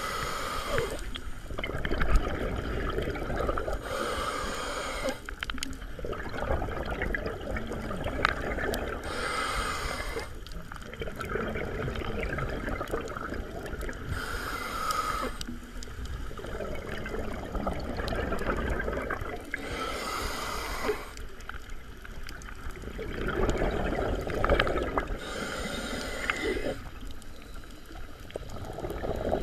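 A scuba diver's regulator heard underwater, breathing in a steady cycle about every five seconds: a short hiss of air on each breath in, then a rush of exhaled bubbles.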